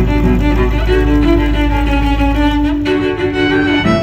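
Background music played on bowed strings, violin over cello, in held notes. A low sustained bass note drops out a little under three seconds in.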